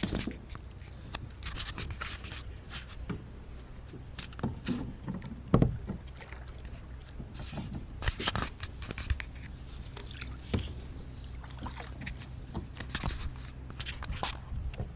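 Sit-on-top kayak being paddled: irregular splashes and knocks of the paddle, over a low steady rumble, with one sharper knock about a third of the way in.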